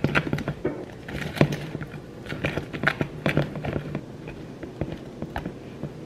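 Funfetti cake batter being stirred by hand in a clear plastic container, the utensil clicking and scraping against the plastic in quick strokes, several a second. The strokes grow sparser and softer in the second half.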